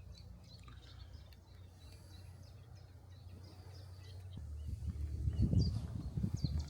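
Small birds chirping and singing on and off over a low steady background hum. In the last two seconds a louder, irregular low rumbling comes in and becomes the loudest sound.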